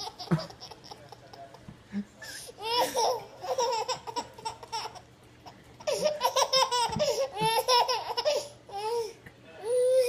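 A young child laughing in several bouts of quick, high-pitched giggles, with short pauses between them.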